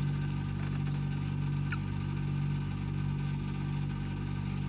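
A steady low motor hum that does not change in pitch or level, with a faint high hiss above it.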